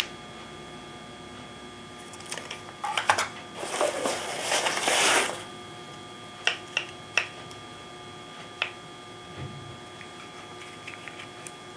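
Unboxing packaging being handled: scattered light clicks and taps, and a crinkly rustle lasting about a second and a half around four seconds in. A faint steady hum underlies it.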